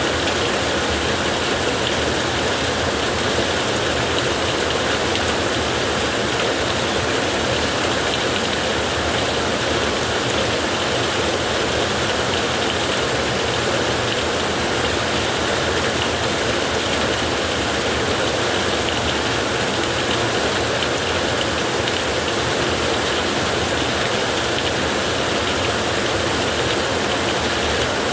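Heavy rain falling on a tin roof: a dense, steady wash of drops that holds even throughout, with no thunder clap standing out.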